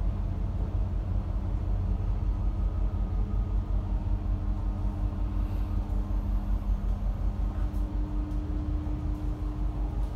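Tug boat's diesel engines running, a steady low rumble heard from inside the wheelhouse, with a faint steady hum alongside.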